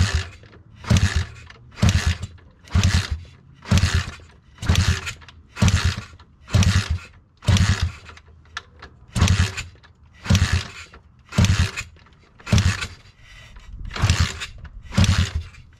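Zongshen 190cc single-cylinder pit bike engine being turned over with its spark plug out for a hot compression test, in about fifteen separate strokes roughly one a second with a short pause near the middle, each a brief loud burst with a low thump.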